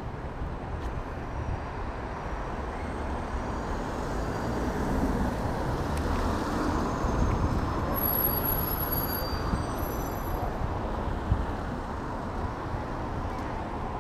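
Street traffic: a steady rumble of road noise, with a vehicle passing that grows louder toward the middle and then fades.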